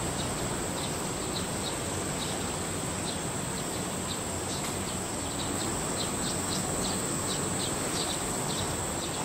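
Outdoor insect chorus: a steady high-pitched drone with short high chirps repeating irregularly, over a steady background hiss.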